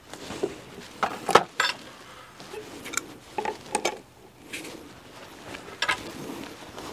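A handful of light metallic clinks and knocks, spaced irregularly, from hand work on a timber girder and its hardware, some of them briefly ringing.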